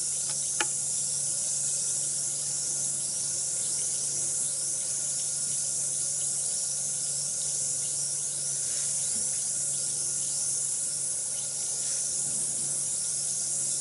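Bath bomb fizzing in water: a steady high hiss full of tiny crackles, with one sharp click about half a second in.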